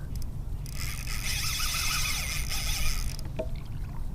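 Fishing reel whirring for about two and a half seconds while a hooked redfish is being fought, with a steady low rumble underneath.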